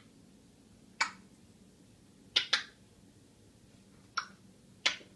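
African grey parrot making sharp clicking sounds: five short clicks at irregular spacing, two of them in quick succession about halfway through.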